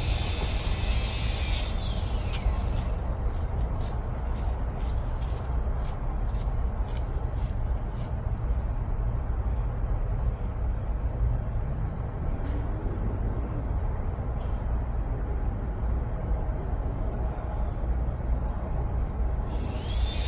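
Steady high-pitched chorus of insects, like crickets, over a constant low rumble.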